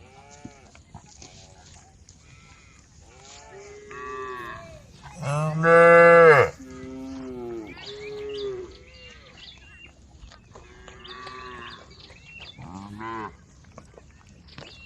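A herd of cows mooing, several animals calling one after another and overlapping at different pitches. The loudest is one long moo about five to six and a half seconds in.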